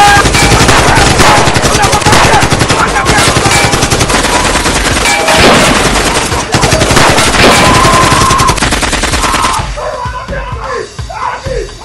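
Rapid automatic gunfire in long, dense strings of shots over background music. The shooting stops about ten seconds in, leaving the music.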